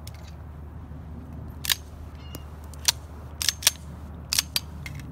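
Sharp metallic clicks and clacks of an Ed Brown .45 pistol being handled after shooting: about seven short clicks, several in quick succession, beginning a little over a second and a half in.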